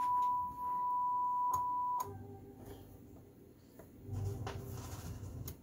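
Steady pure test tone from the Marantz 2285B receiver's FM tuner, reproducing the modulation of a signal generator tuned to 90 MHz, which stops with a click about two seconds in, leaving faint hiss and hum.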